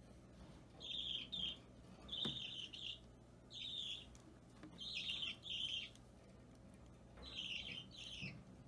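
Budgerigar chick giving short, rasping begging chirps while being hand-fed, about nine calls, mostly in pairs.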